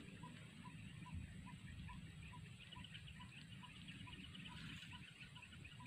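Faint open-air ambience: a small animal repeats one short, mid-pitched note about two or three times a second, evenly and without a break. A faint high chirring joins about three seconds in, over a low rumble.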